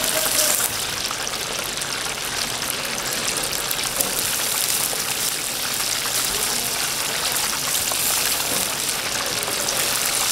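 Chicken deep-frying in hot oil: a steady sizzle with fine crackles.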